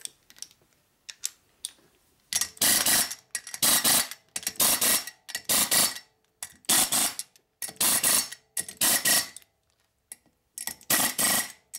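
A power wrench running nuts down on a Harley shovelhead engine in about eight short bursts, starting about two seconds in after a few light clicks.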